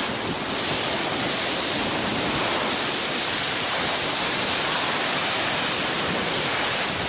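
Seawater rushing and spraying steadily along the hull of an IMOCA 60 racing yacht under way, foaming over its canted keel.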